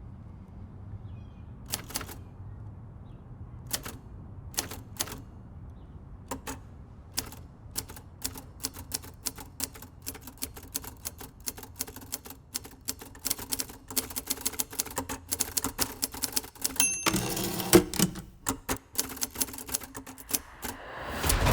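Vintage manual typewriter being typed on: a few hesitant keystrokes at first that pick up into quick, steady typing. About two-thirds through, a short bell ring is followed by the loud rasp of the carriage being returned, and typing resumes.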